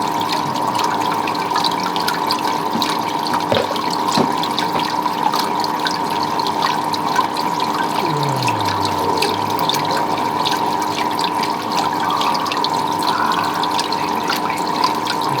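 Water pouring and splashing steadily, with many small splashes and drips and a steady hum underneath.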